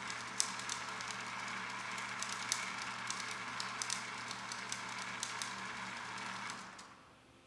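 Motorized flipbook machine running: a steady motor hum under a dense, rapid patter of flicking pages, with sharper clicks scattered through it. It dies away about seven seconds in.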